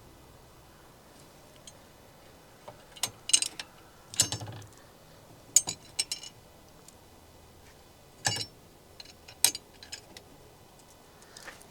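Steel bolts and the steel hitch clinking and knocking as the bolts are dropped down through the hitch and frame holes: a scatter of sharp metallic clicks at irregular spacing, the loudest a few seconds in and again around eight to nine and a half seconds in.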